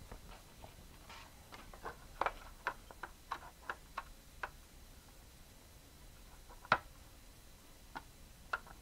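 Plastic insulation sheet being handled and pressed into a monitor's metal chassis: a quick run of sharp clicks and crackles in the first half, then a few single clicks, the loudest a little past the middle.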